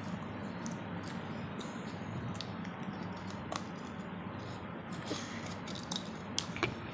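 Teeth gnawing at the rim of a large fired-clay pot, giving scattered small clicks and scrapes that come faster from about five seconds in, with a few sharper cracks near the end as the bite presses into the clay.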